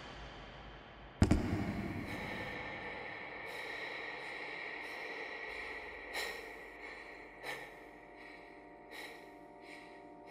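A single sharp bang about a second in, followed by a steady high ringing tone over a sustained chord. Soft struck notes that ring on come in every second and a half or so.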